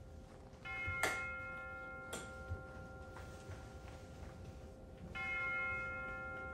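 Soft background music with bell-like chimes over a steady held tone: a ringing chord is struck about a second in and again near the end, each fading out. Two sharp clicks fall in the first half.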